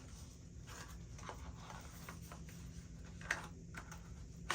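Faint handling sounds of a small gift box being opened: light rustles and soft taps, with a sharper click about three seconds in and another near the end.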